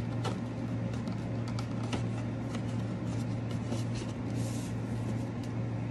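Steady low electrical hum, with scattered faint clicks and rustles of packaging being handled.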